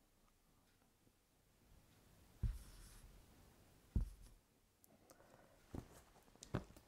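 A small wooden-framed whiteboard being handled: faint marker scratching at first, then two sharp knocks about two and a half and four seconds in as the board is moved, and lighter knocks near the end as it is lifted up.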